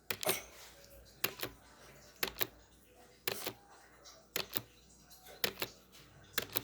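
Timer ticking: a pair of sharp clicks about once a second, evenly spaced, as the count runs.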